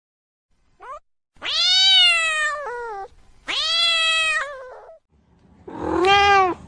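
Domestic cat meowing: a short chirp, then three long meows, each arching up and falling in pitch.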